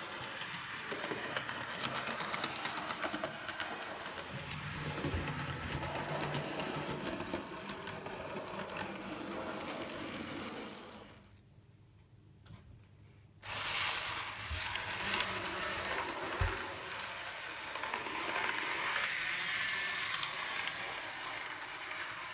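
N gauge model trains running on the layout: a small electric motor whirring, with fast, fine clicking from wheels on the track. The sound drops away for about two seconds just past the middle, then resumes.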